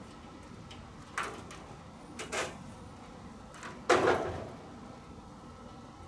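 Handling knocks and scrapes against the sheet-metal casing of an LG outdoor air-conditioner unit: two light knocks, then a louder clunk with a short ringing tail about four seconds in.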